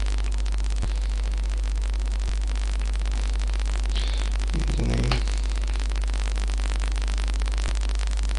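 Steady low electrical hum under a constant hiss of static from the recording chain. There is a brief low murmur about five seconds in and a few faint ticks.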